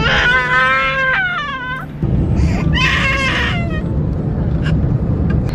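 Toddler whining and crying in two drawn-out, wavering wails, the first trailing down in pitch: the fretful crying of a small child uncomfortable during an airliner's landing.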